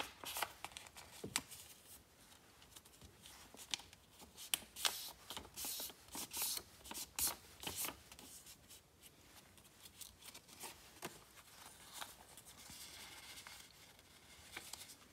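Sheet of paper rustling and crackling in the hands as it is folded and creased into a paper airplane. The crackles come quick and irregular, thickest in the middle.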